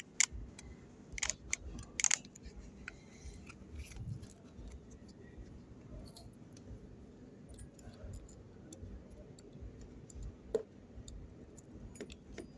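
Small handling clicks and taps on a workbench: a few sharp clicks in the first two seconds, then faint scattered ticks over a low steady hum.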